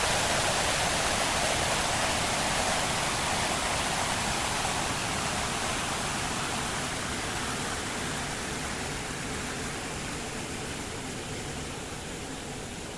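Noise music: a dense, even hiss with no rhythm or pitch, slowly fading and growing duller as its upper hiss thins out.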